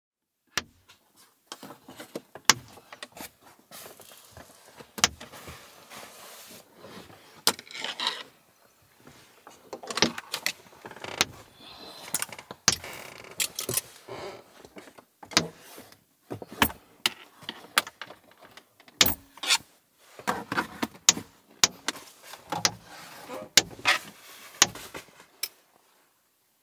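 Blackout shades being peeled off a car's inside windows and handled: a string of irregular clicks and knocks mixed with rustling.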